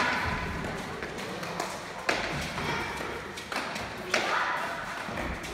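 Hard leather pelota ball in a bare-hand (main nue) rally, smacking off players' palms and the trinquet's walls: about four sharp smacks a second or more apart, each ringing briefly in the hall, with children's voices calling out.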